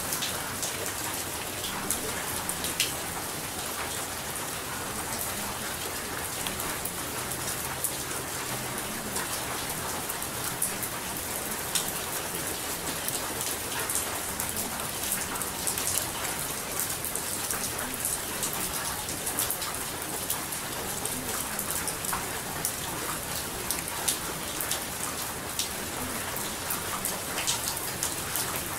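Steady heavy rain falling, with many small drop ticks through a dense hiss.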